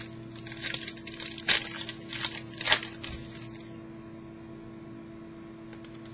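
Trading cards being handled and flipped, a run of short rustles and clicks over about the first half, two of them sharper. A steady low electrical hum runs underneath.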